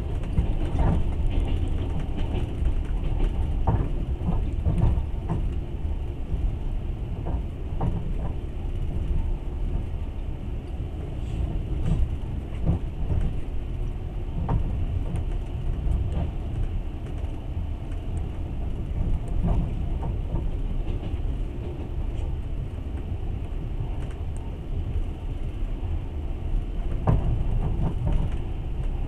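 Passenger train running on rails: a steady low rumble from the wheels, with irregular knocks and rattles scattered through it.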